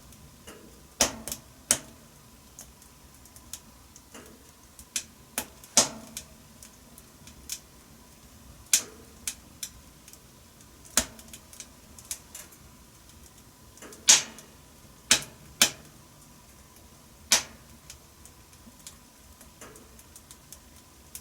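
Wood fire crackling in a wood-burning stove: irregular sharp pops and snaps, some close together and some seconds apart, over a faint hiss.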